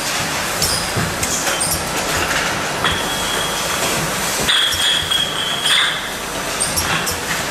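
Four-nozzle filling machine running as it fills glass jars with chocolate cream, with the jars clinking sharply against each other and the guides on the conveyor. A high steady tone joins in about three seconds in and stops near six seconds.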